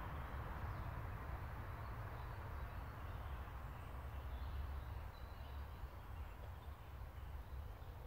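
Quiet woodland ambience: a steady low rumble with faint bird chirps.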